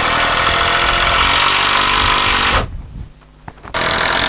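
Festool cordless drill driving screws into timber roof battens: a run of about two and a half seconds, a short stop, then a second run near the end.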